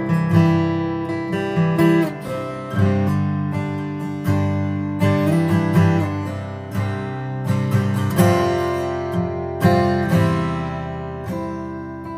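Acoustic guitar music: chords plucked and left to ring, a new one about every second or so.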